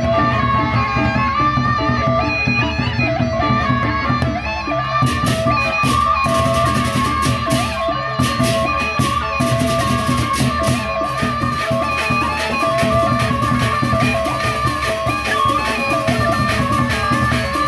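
Sasak gamelan ensemble playing baleganjur-style music. Large barrel drums beat under bronze metallophones and gongs that hold ringing tones, and from about five seconds in clashing hand cymbals join in a fast, dense rhythm.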